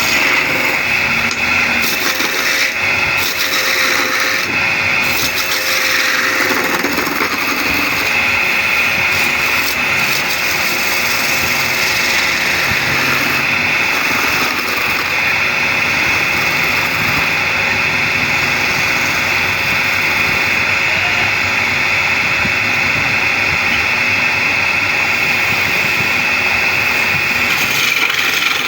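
Wood lathe running steadily while a tool cuts the spinning wood, a continuous noisy whir.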